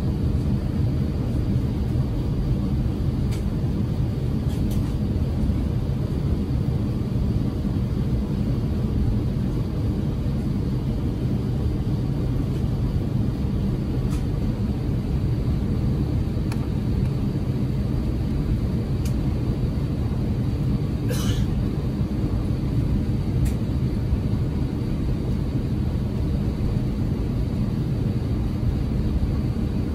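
Steady low rumble inside the cabin of an Airbus A350-900 taxiing on the ground, from its engines at low thrust and the aircraft rolling. A few faint clicks are heard, and there is a short hiss about two-thirds of the way through.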